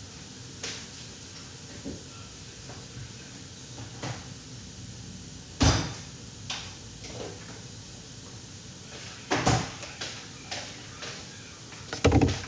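Scattered knocks and clicks of someone moving about a kitchen, with cupboard doors or drawers shutting; the loudest come about six and nine and a half seconds in. Near the end, a pair of thumps as a milk carton is set down on the counter.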